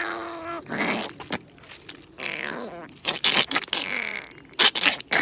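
Chihuahua vocalizing with its mouth wide open. A held pitched cry breaks off about half a second in, followed by a string of short, harsh yelps and snarls that are loudest near the end.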